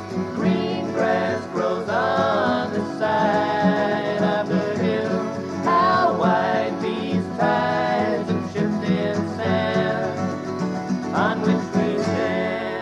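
Acoustic folk music: acoustic guitar playing under several voices singing in harmony.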